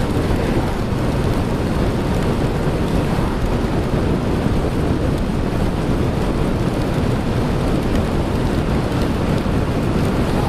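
Steady wind buffeting on the microphone of a motorcycle ridden through heavy rain, with rain and road noise beneath it.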